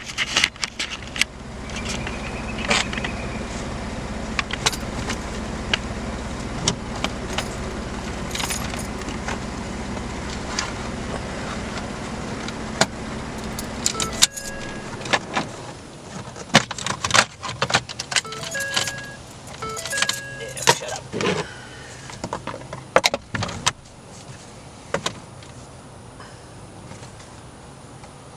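Plastic clicks and knocks as a steering-column shroud is fitted, with keys jangling. A steady low hum runs under the first half and stops about halfway, and a few short beeps follow.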